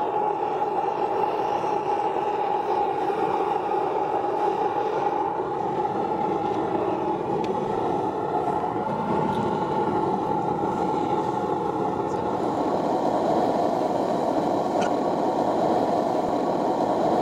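Burner of a small metal-melting furnace running steadily, a constant rushing noise as it heats a crucible of aluminum to melting.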